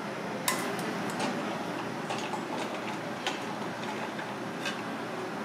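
About six sharp, irregular clinks of stainless steel kitchen bowls being handled and knocked, over a steady background hiss.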